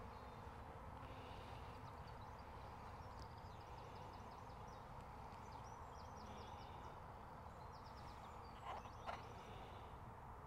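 Faint outdoor ambience: a low steady rumble with distant birdsong, quick high trills between about three and nine seconds in, and two short clicks near the end.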